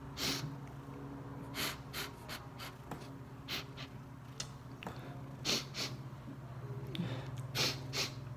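A man crying without words: a series of short, sharp sniffs and gasping breaths, several in a row, over a steady low hum.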